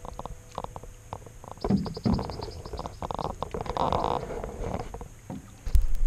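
Canoe paddling: wooden paddle strokes swishing and dripping in the water, with scattered knocks of the paddle and hull, and a heavier thump against the canoe near the end.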